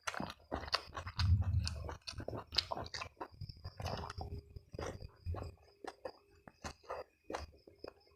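Close-miked chewing: a person eating with a steady run of wet smacks and clicks of the mouth, and a few low thuds about a second in.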